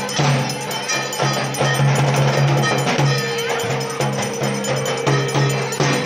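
Arati percussion: metal bells struck rapidly and ringing, over a repeating low drum beat.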